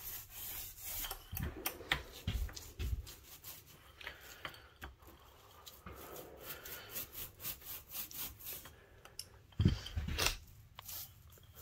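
Small paint roller rolling oil-based polyurethane onto pine window casing: repeated short, scratchy rubbing strokes, with a few dull knocks about two seconds in and again near the end.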